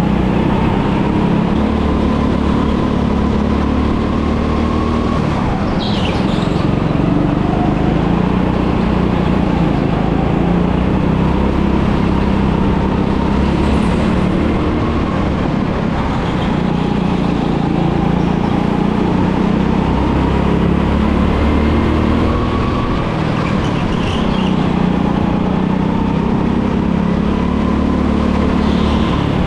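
Go-kart engine running without a break, its pitch slowly rising and falling as the kart speeds up and slows, with a short high squeal every several seconds.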